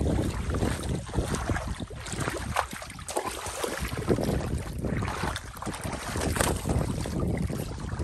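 Shallow muddy water sloshing and splashing as a child wades through it and pushes a large metal pot along the surface, with some wind noise on the microphone.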